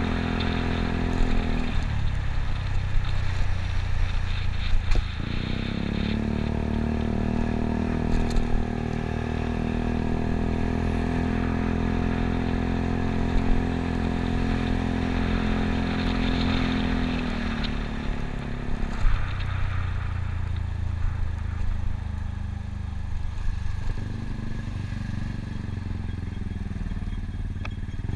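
Yamaha Cygnus scooter's 125 cc single-cylinder four-stroke engine running under way, its note rising about five seconds in, holding steady, then falling back as the throttle eases about eighteen seconds in, with wind and road noise.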